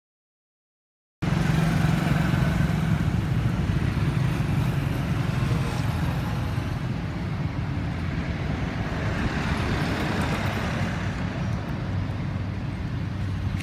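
Silence for about a second, then a steady low rumble of background noise begins.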